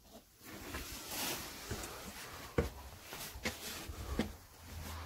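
A person moving through a cramped space: scuffing footsteps and rustling, with four sharp knocks as of feet or the phone against wooden boards, the loudest about halfway.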